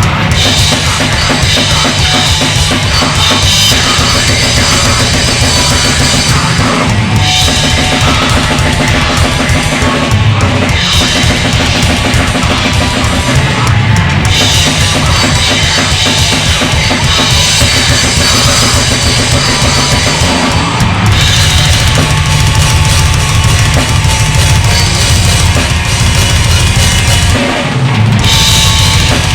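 Heavy metal song with a loud drum kit driving it, the bass drum playing a fast, dense pattern under guitars and cymbals.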